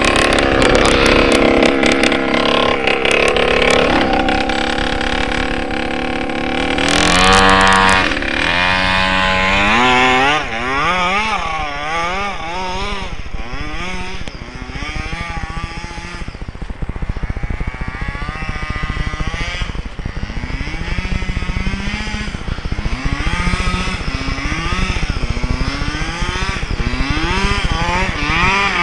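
FG large-scale RC truck's 27cc two-stroke gas engine revving, held high for the first few seconds, then rising and falling again and again as the throttle is worked.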